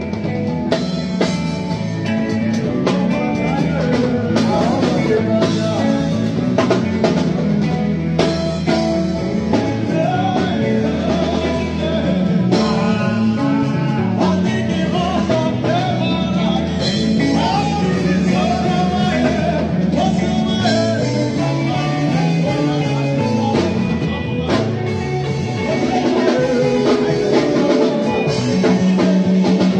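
A band playing live, rehearsing: a drum kit keeping a steady beat under bass and guitar, with a lead melody that bends and wavers in pitch.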